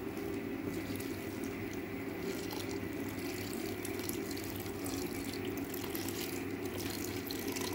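Water poured from a jug into an aluminium pressure cooker, splashing steadily onto chicken, soaked chana dal and sliced onions.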